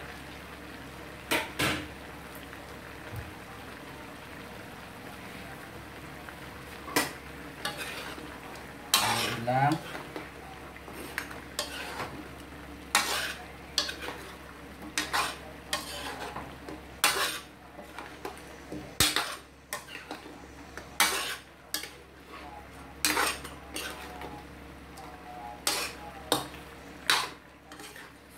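A metal spatula scrapes and clacks against a metal wok as a saucy gizzard adobo is stirred, over a steady simmering hiss. The strokes are few at first, then come about once a second through the second half.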